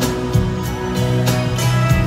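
Live pop ballad played through an arena sound system, in a stretch with no singing, instruments only.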